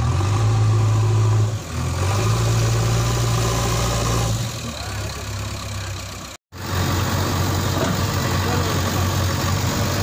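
Diesel engines of a JCB 3DX backhoe loader and a tractor running steadily, the engine note swelling and easing as the machines work under load. The sound cuts out for a moment about six seconds in.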